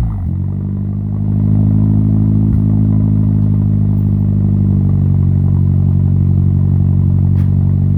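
Car engine heard through a one-off exhaust with a period Gojigen Border stainless-steel silencer: the revs fall back from a blip at the start, then it settles into a steady idle that gets louder about a second and a half in.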